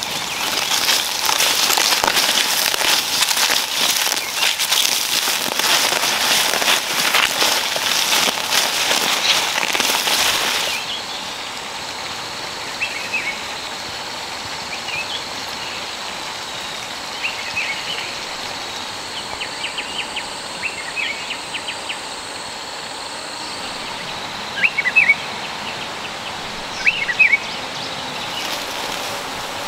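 For about the first ten seconds, close crackling and rustling of leafy garden plants handled and pulled by hand. Then it cuts to a quieter outdoor background with short bird chirps every few seconds, two louder ones near the end.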